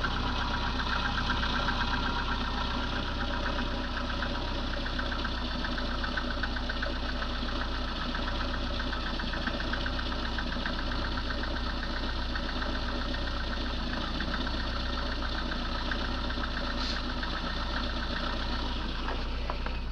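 VAZ-2110 16-valve engine idling with a fast, even tapping knock in its running. This is the knock that shows up after a cold start at −10 °C and fades away as the engine warms past about 50 °C.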